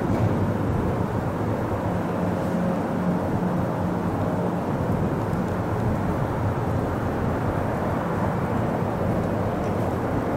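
Diesel commuter-rail locomotive running steadily, a low rumble with a steady engine hum underneath.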